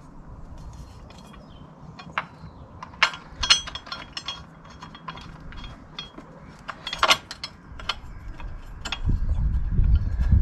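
Metal clinks and clicks of bolts, washers and the steel crash-bar tubes being handled and pushed into place against the motorcycle frame: scattered single taps, the loudest about three and seven seconds in. A low rumbling noise comes in near the end.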